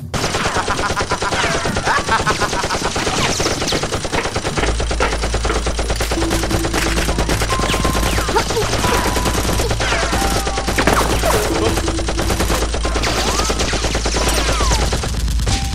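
Rapid, continuous automatic gunfire, shot after shot, laid over a Nerf blaster fight, with several falling whistles among the shots. A deep low rumble joins about four and a half seconds in.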